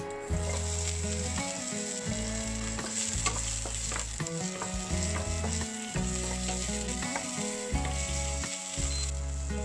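Sliced ginger, green onion and chili hitting hot oil in a nonstick wok and sizzling, starting right as they go in, while a wooden spatula stirs them around.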